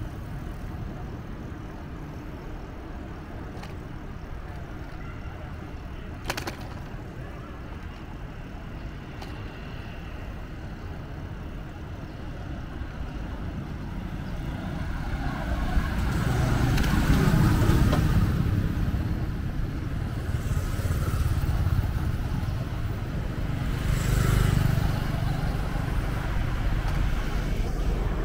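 Street traffic with a steady low rumble that swells louder twice, about two-thirds of the way through and again near the end, as vehicles go by. A single sharp click comes about six seconds in.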